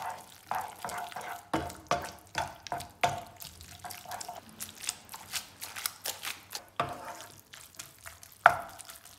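Wooden spoon stirring and tossing spaghetti in a non-stick frying pan, mixing in melting processed cheese slices for a creamy sauce. Quick, irregular knocks and scrapes of wood on the pan with wet, squelching pasta, two or three strokes a second, with one louder knock near the end.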